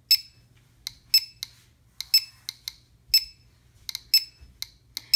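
GQ GMC-320 Plus Geiger counter clicking at random intervals, short high-pitched beeps about twice a second. Each click is a detected count from a uranium ore sample, at a rate of about 120 to 130 counts per minute.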